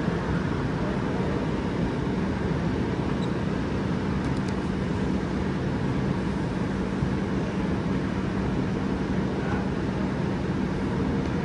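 Shopping-mall background noise: a steady low rumble with a faint constant hum.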